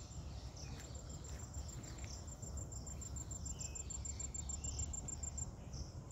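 Crickets chirping in a fast, even high-pitched pulse, with a few faint bird calls over it.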